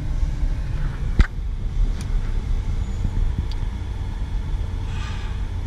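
Steady low rumble of a car's running engine and cabin, heard from inside the car as it sits in slow traffic. A single sharp click about a second in.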